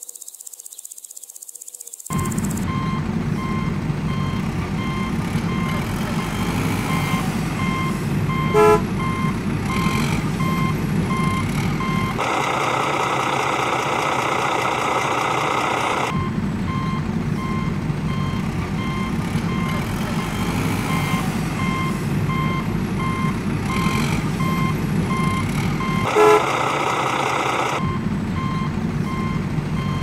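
Truck engine running with a reversing alarm beeping steadily over it, starting about two seconds in. This is a sound effect laid over toy construction vehicles. Twice the low rumble gives way for a few seconds to a harsher, higher noise.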